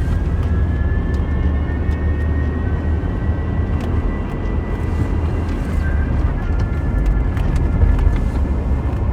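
A 2004 Volvo S60 2.4 with a five-speed manual gearbox driving, heard from inside: steady low road and engine rumble with a thin, high whine over it that rises a little in pitch over the first few seconds and then holds. The whine comes only while driving, not at idle or when revving, and its cause is unknown.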